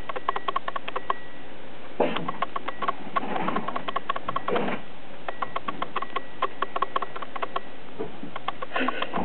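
Chihuahua puppies snuffling and sniffing in short noisy bursts as they play-fight, over a rapid, even ticking of about eight ticks a second.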